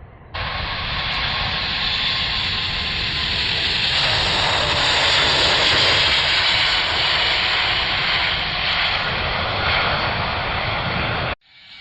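An Airbus A380's four jet engines at takeoff power: a loud, steady rush of jet noise. It starts abruptly just after the start and cuts off suddenly near the end.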